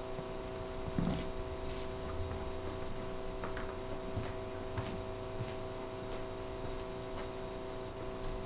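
Steady electrical mains hum with a few faint knocks now and then.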